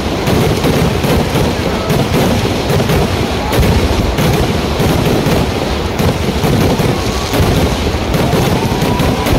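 Vedikettu fireworks going off in a dense, unbroken barrage of rapid bangs and crackles, steady in loudness throughout.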